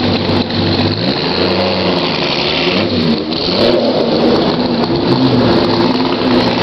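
Classic racing car engines running at low speed, with one engine revved up and back down a couple of times over others idling steadily.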